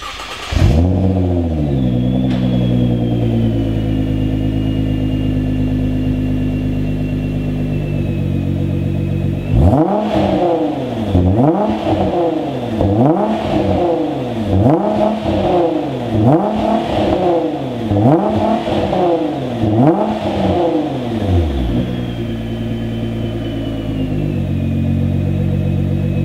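Nissan GT-R R35's twin-turbo V6 firing up through a full stainless T1R downpipe, Y-pipe and 90R cat-back exhaust, flaring and settling quickly to a steady idle. From about ten seconds in, the engine is revved in a string of quick throttle blips, each rising and falling, about one every second and a half. It then drops back to idle.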